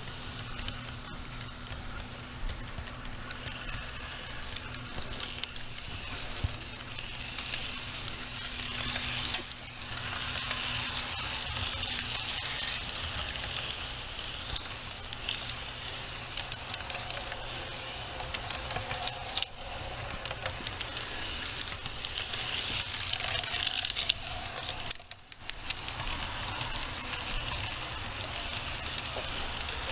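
HO scale model freight train rolling past close by: a steady rattle and hiss of the wheels and cars on the track, with rapid clicking. A low hum under it fades after about twelve seconds.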